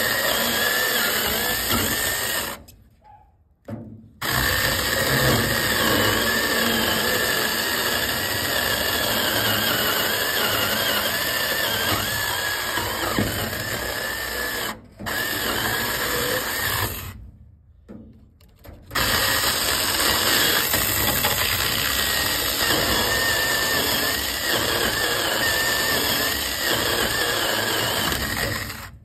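Battery-powered 6-inch mini chainsaw running under load, its chain cutting slowly into a thick wooden log with a steady whine. The sound drops out briefly three times: about 3 seconds in, at about 15 seconds, and for a couple of seconds at about 18 seconds.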